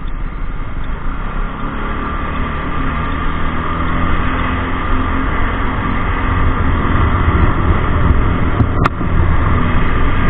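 Motorcycle riding in traffic, pulling away from a stop and growing louder as it gathers speed, with one sharp click near the end.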